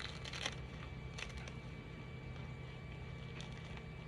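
Faint clicks and rustles of a 3D-printed shoe being worked loose from the printer bed, a few near the start and one about a second in, over a steady low hum.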